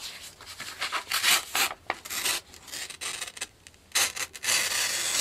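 A Mora Companion knife with a freshly sharpened Scandi edge slicing through a sheet of printed paper in a series of short cutting strokes, with the paper rustling. A longer slice comes near the end.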